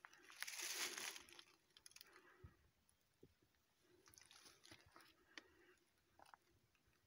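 Faint footsteps crunching and rustling through dry leaf litter on a forest path, with a louder crunch of leaves about half a second in and scattered small twig snaps.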